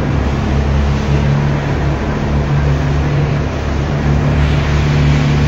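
Passenger fast boat's engines droning steadily, heard from inside the cabin, with a broad rush of water against the hull.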